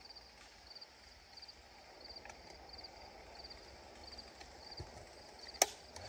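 Quiet woodland background with a faint high chirp repeating about twice a second, and a single sharp crack near the end.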